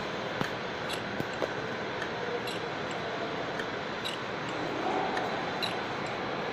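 Slotting machine running while cutting a keyway: a steady mechanical hum with a light click about every second and a half as the ram strokes up and down.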